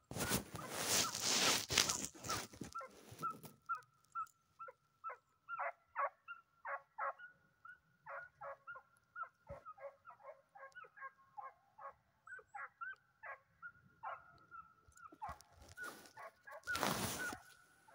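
Hunting dogs barking and yelping in a rapid string, two or three yelps a second, the voice of hounds working a trail. A loud rush of noise on the microphone covers the first three seconds and again briefly near the end.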